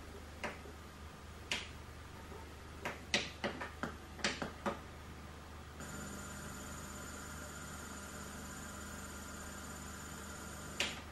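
Videotape soundtrack noise: scattered sharp clicks, with a quick run of about eight in the middle. From about six seconds in a steady hum sets in with a thin high whine, and one last click comes near the end.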